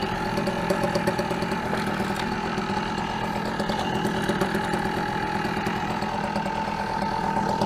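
Go-ped GSR25 scooter's small two-stroke engine idling steadily, its idle speed recently raised so that it no longer cuts out.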